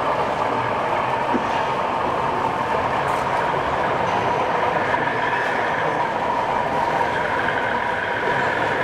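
Model diesel locomotive running slowly on a model railway layout, a steady train-like hum with a held tone.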